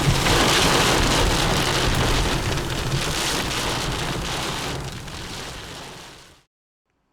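Heavy rain and wind pounding down in the rear-flank downdraft ('bear's cage') of a tornadic supercell, a dense rushing noise with a low rumble. It fades out about six seconds in and stops.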